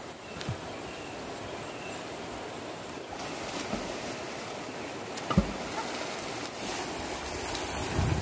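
Steady rushing of a shallow, rocky river flowing over boulders and riffles, a little louder from about three seconds in, with a single short thump about five seconds in.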